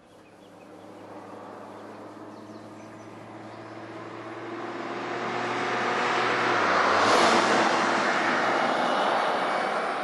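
Daihatsu Atrai Wagon Custom Turbo RS kei van with a 660 cc turbocharged engine driving past: engine and tyre noise build steadily as it approaches, loudest as it passes about seven seconds in, then easing slightly as it pulls away.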